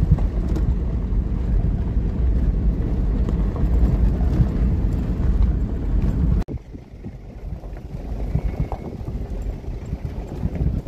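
4x4 vehicle driving on a rough gravel track, heard from inside the cabin: a steady low rumble of engine and tyres on gravel. About six seconds in it cuts off suddenly, leaving quieter wind noise on the microphone.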